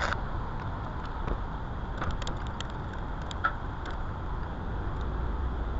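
Workshop background: a steady low hum with scattered light clicks and taps.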